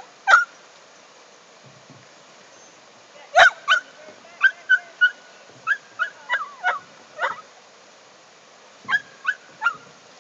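Short, high-pitched yelping calls from an animal, coming in scattered groups of two to five with quiet gaps between.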